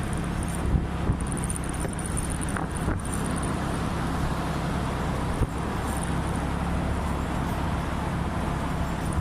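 Scooter engine running steadily while being ridden at speed, with wind and road noise.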